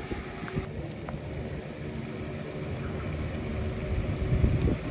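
A motorcycle engine running steadily, a little louder near the end.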